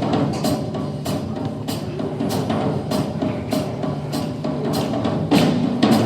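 Instrumental music with a steady percussion beat, a hit a little more often than once a second, over held notes; it grows a little louder near the end.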